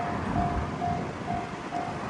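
Japanese railway level-crossing warning bell ringing its steady 'kan-kan' alarm, one short pitched ding a little more than twice a second, over a steady rushing noise.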